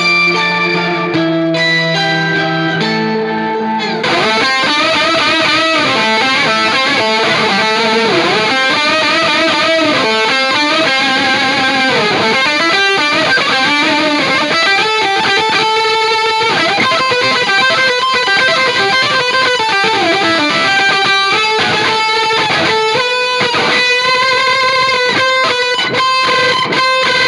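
Electric guitar played through two DigiTech Whammy pitch-shifting pedals stacked as octave effects. A few held notes give way about four seconds in to a dense, warbling sound with notes sliding up and down in pitch.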